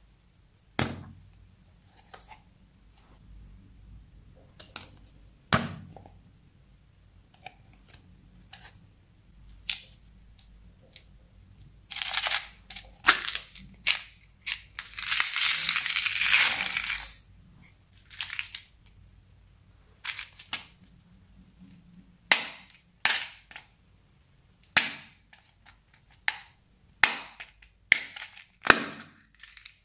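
Small clear plastic craft containers clicking and snapping as they are handled and opened. In the middle, a few seconds of plastic letter beads rattling in a heart-shaped plastic box. Near the end, a quick run of sharp plastic clicks as beads are tipped out into the slime.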